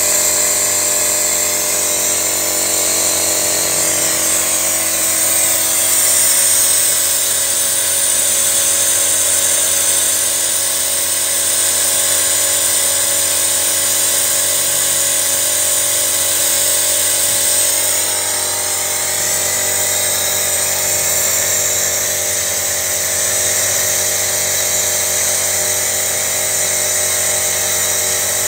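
A machine's steady high-pitched whine with several steady tones, its pitch shifting briefly about four seconds in.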